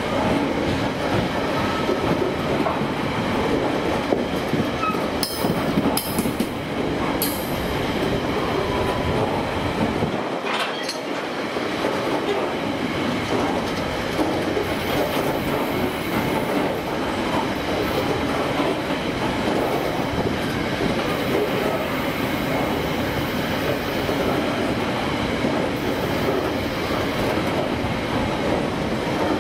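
Long freight train of container wagons loaded with waste containers rolling steadily past, wheels rumbling and clattering over the rail joints with a few sharp clicks.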